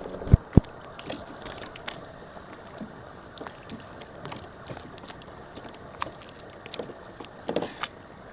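Small waves lapping and splashing against a kayak hull, with scattered light taps. Two sharp knocks come about half a second in, and a few more near the end.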